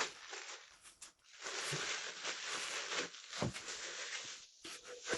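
Packaging crinkling and rustling in two stretches, with a few sharp crackles, as an item is unwrapped by hand.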